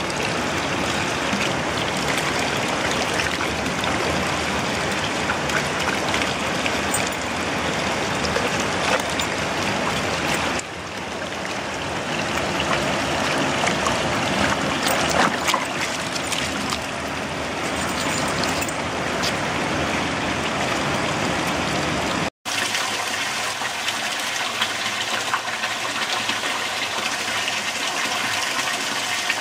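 Spring water running steadily from a metal fountain spout and splashing into a stone basin. The sound drops out for an instant about three-quarters of the way through, then a second spout's stream is heard splashing into a stone trough.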